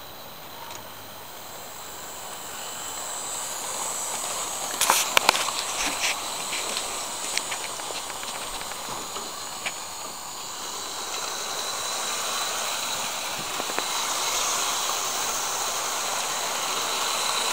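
Hornby model train locomotives running on their track, small electric motors whining with a thin high tone and wheels rattling on the rails, growing steadily louder as they are brought up to full power. A quick cluster of sharp clicks and rattles about five seconds in.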